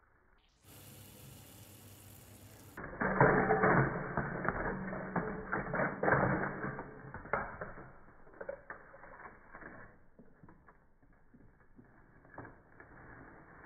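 Crinkle-cut potato chips tumbling into a glass bowl: a dense rattling crackle of many small clicks for about four seconds, thinning to scattered clicks. A brief steady hiss comes just before it.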